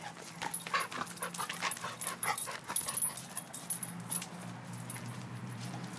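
A pit bull with a Nylabone chew bone in its mouth makes short, irregular dog noises and clicks. They come thickly for about three seconds and then thin out.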